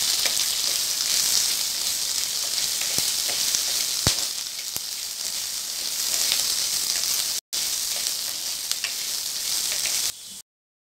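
Sliced onions, garlic and dried red chillies sizzling in hot oil in a pan while being stirred with a wooden spatula, with a steady frying hiss and a few sharp knocks of the spatula, the loudest about four seconds in. The sound cuts off abruptly near the end.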